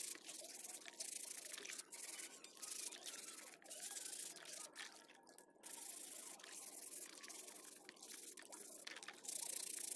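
A sponge scrubbing the white plastic frame of an Advan phone in a basin of soapy water: irregular rubbing strokes with sloshing and dripping water, easing off briefly about halfway.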